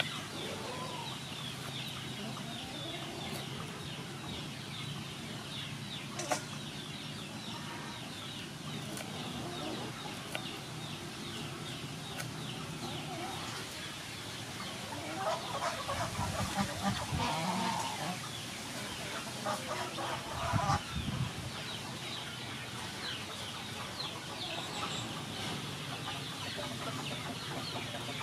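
Poultry calling and clucking in bursts, loudest roughly halfway through and again a few seconds later, over a steady high chorus of chirping.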